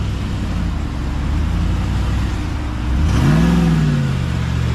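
Car engine running with a steady drone, revving up and back down once about three seconds in.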